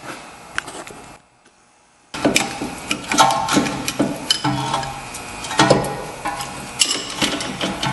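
Ratchet wrench clicking and metal clinking and scraping as a brake piston wind-back tool screws the rear caliper piston back into its bore. The piston has to be rotated in, not pushed. The sound drops out for about a second, then the irregular clicks and clinks run on, some with a short metallic ring.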